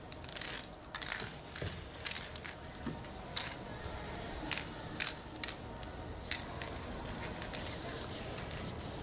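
Aerosol spray paint can spraying, a high hiss that comes in several short bursts, with scattered clicks among them.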